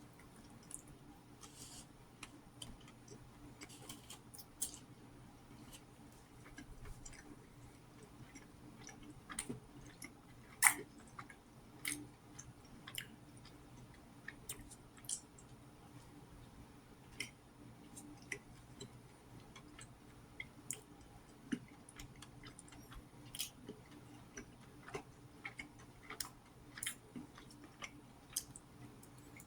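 Close-up chewing and mouth clicks from someone eating soft cheese-topped garlic bread, as a string of short, irregular clicks and smacks. One click about ten seconds in is much louder than the rest.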